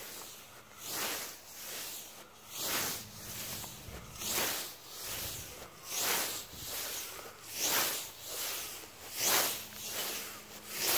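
Scythe blade swishing through tall grass in steady mowing strokes, a louder swish about every second and a half with a softer one between.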